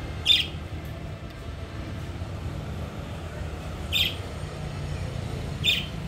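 Budgerigars giving three short, sharp chirps a few seconds apart, the first the loudest, over a steady low background rumble.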